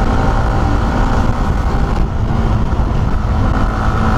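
Motorcycle underway at road speed: a steady engine note under constant wind rush on the rider's microphone, with no change in throttle.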